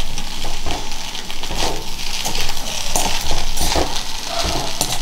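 A metal spatula stirring and scraping poha around a black iron kadhai in repeated strokes, over a light sizzle from the pan.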